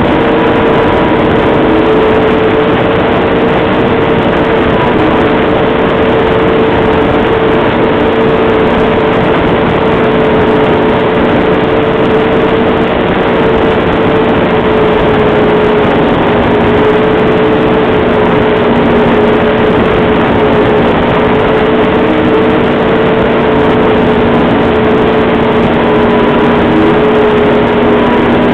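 Snowmobile engine running at a steady high speed with an even, unchanging pitch, over a dense rushing noise. Right at the end the pitch begins to drop as the sled eases off.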